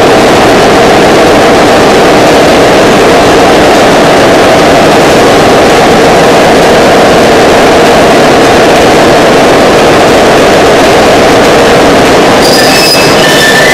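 Concrete pole spinning machine running: a steel pole mould turning on steel roller wheels, giving a loud, steady rumble. Short high metallic squeals come in near the end.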